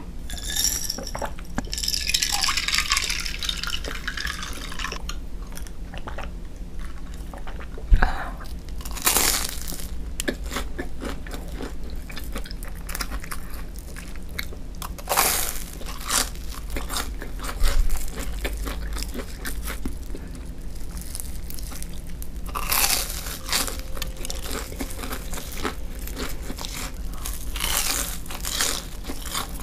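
Close-miked eating: gulps of a drink from a glass at the start, then several sharp crunchy bites and chewing of deep-fried breaded sticks, spaced a few seconds apart.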